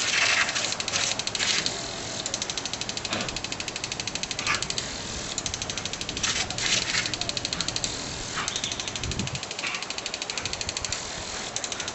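Impact lawn sprinkler clicking rapidly and steadily as it turns, with the hiss of its water spray.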